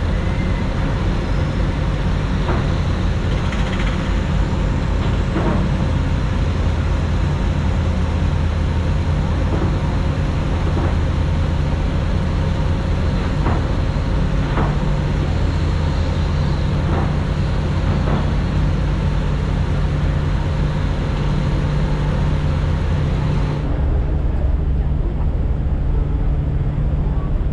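Steady low engine drone with a few faint knocks scattered through it; near the end the hiss above the drone drops away abruptly while the drone carries on.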